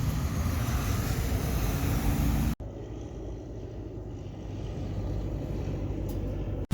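Steady motor-vehicle rumble with a hiss above it, cut off abruptly about two and a half seconds in and followed by a quieter, steadier rumble.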